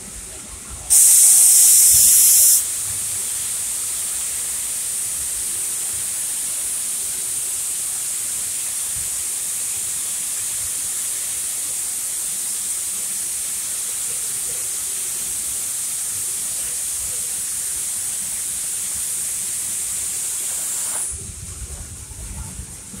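The Dixiana steam locomotive hissing steam: a very loud blast for about a second and a half, then a steady high hiss that cuts off abruptly near the end.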